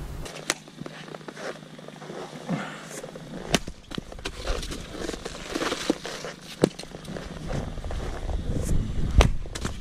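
Splitting axe striking firewood rounds on a chopping block, a sharp crack about every three seconds, with quieter shuffling and handling noise between strikes.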